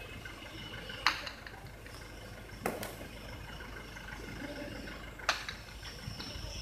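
Three sharp cracks of a hard jai alai ball (pelota) striking the fronton's walls and floor during a cesta punta rally, about a second in, a second and a half later, and again near the end, each ringing briefly.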